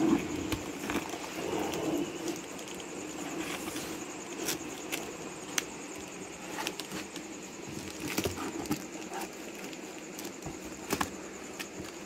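Packing tape on a cardboard carton being slit open with a small blade, with scattered sharp clicks, scrapes and crackles of the cardboard being handled.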